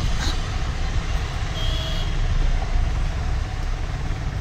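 Steady low rumble of background noise, with a brief high beep a little under two seconds in.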